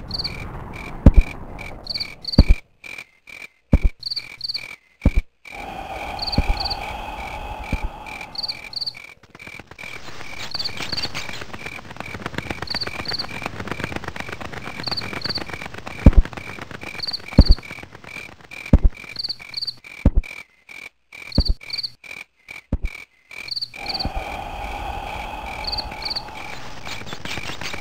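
Night chorus of frogs croaking and insects chirping in a steady, regular rhythm. Over it come slow, heavy footsteps about one every second and a half, the loudest sounds, in two runs with a pause between them.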